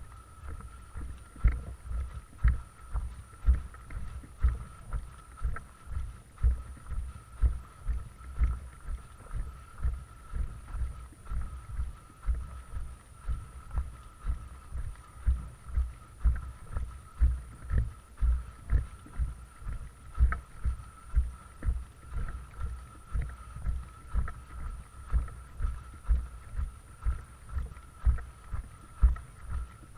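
Footsteps of someone walking at a steady pace, low thumps about twice a second, with a little wind on the microphone.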